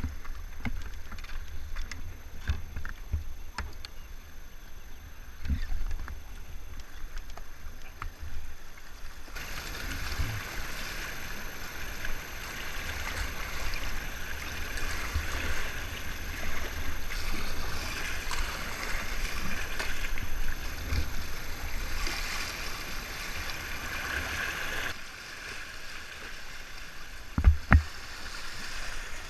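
Fast river water rushing and splashing around a whitewater kayak, heard close up from the boat, with paddle strokes in the water. About a third of the way in the rushing turns louder and hissier as the boat runs rougher water, easing again shortly before two loud knocks near the end.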